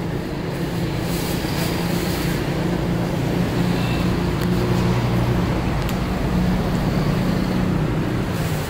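Motor vehicle engine running, a steady low hum that grows louder through the middle and drops off near the end. A couple of faint clicks from knife work on the wooden block.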